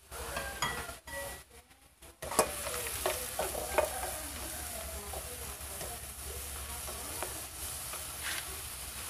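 Stir-frying in a frying pan: a spatula scraping and knocking against the pan as chicken, bell pepper and cashews sizzle steadily in oil. The sound drops to near silence for about a second shortly after the start, and the clicks and scrapes cluster in the next couple of seconds.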